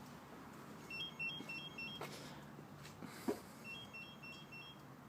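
Triggered motorcycle alarm system beeping faintly: two short runs of quick, high electronic beeps stepping between a few pitches, about three seconds apart. A short click a little past the middle.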